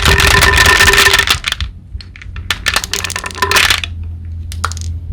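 Dense crackling and crunching for about a second and a half, then a run of scattered sharp cracks and clicks, over a low steady hum.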